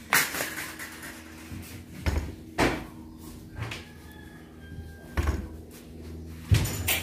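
Scattered knocks and clunks of a large glass sheet being handled and shifted on a metal work table, about six of them with the loudest near the end, over a low steady hum.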